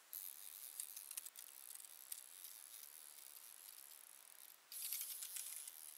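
A fly reel clicking rapidly as line is pulled off it against a hard-bent rod, the sign of a hooked fish running. There are two runs: about two seconds at the start, and a second burst near the end.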